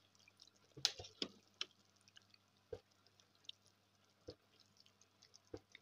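Pot of lamb soup simmering, faint scattered bubble pops: a small cluster about a second in, then single pops every second or so.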